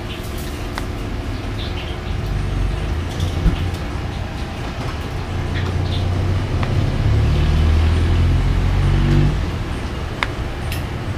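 Low rumble of passing road traffic, loudest from about six to nine seconds in as a vehicle goes by, with a few light clinks of a metal spoon against a plate.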